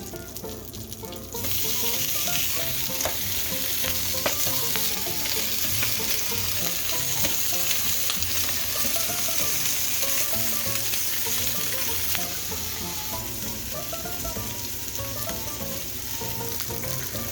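Slices of Spam frying in a pan: a steady, loud sizzle that starts suddenly about a second and a half in.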